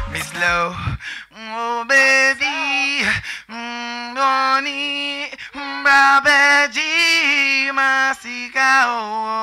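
Male reggae singer's voice through a handheld stage microphone, singing unaccompanied in long held high notes that bend at their ends. The backing music with its bass cuts out about a second in.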